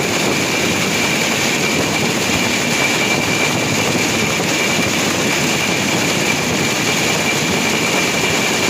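Motorised rail inspection car running along the track: a steady, loud rush of running noise with a constant high whine over it.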